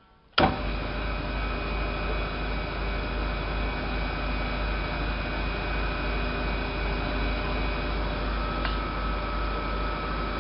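Kosmos metal lathe switched on with a click, its spindle then running steadily with a low motor hum and a steady whine, on a freshly greased, newly refitted spindle bearing with the play taken up. Near the end there is a short tick and the whine shifts in pitch.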